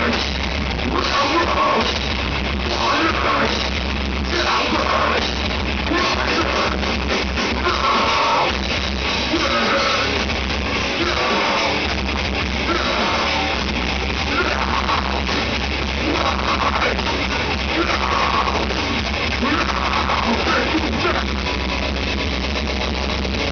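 Melodic death metal band playing live: distorted electric guitars, bass and drum kit, with harsh yelled vocals coming in and out over the music.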